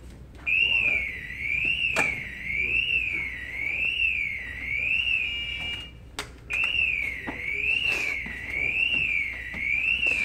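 Electronic alarm wailing, its tone sweeping up and down about once a second, cutting out briefly near the start and again about six seconds in. A few sharp knocks sound over it.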